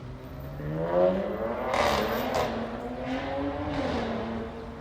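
A car engine accelerating hard as the car pulls away: the pitch climbs over the first second, it is loudest about two seconds in, then holds steady and drops near the end as it eases off.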